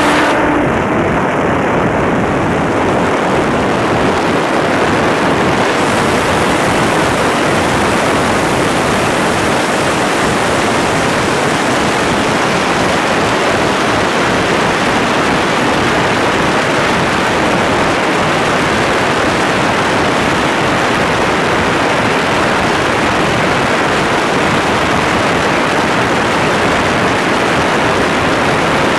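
Wind tunnel blowing at about 65 to 70 mph: a loud, steady rush of wind over a microphone held in the airstream, with low fluttering buffets. The hiss grows brighter over the first six seconds or so, then holds steady.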